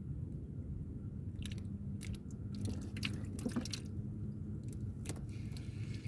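Scattered sharp clicks and wet ticks from a spinning rod and reel being worked, and from the water, as a fish is hooked and pulls the rod over, with a steady low rumble underneath.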